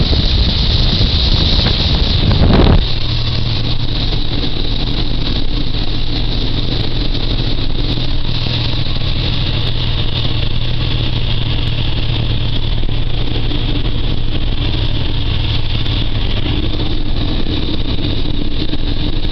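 Peterbilt log truck's diesel engine running steadily, heard from inside the cab. A loud rush of wind covers the first few seconds and cuts off abruptly about three seconds in.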